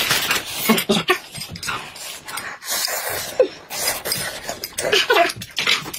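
Noisy eating of hot soup: loud slurps and sips from glass bowls, mouth smacking, and a few short hums.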